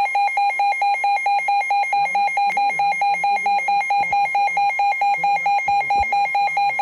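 Emergency alert beeping for a severe thunderstorm warning: a loud electronic alarm tone pulsing rapidly and evenly, about five beeps a second.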